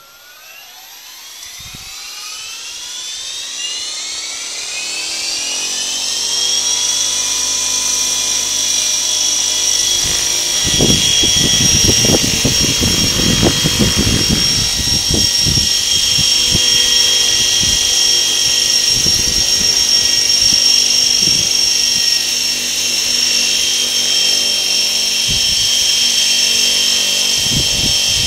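Electric tandem-rotor model helicopter with two T-Rex 550 rotor heads spinning up from rest. A high whine of motors and rotors rises in pitch over the first six seconds, then holds steady. From about ten seconds in, as it lifts off and hovers, the rotor downwash adds low gusty rumbles on the microphone.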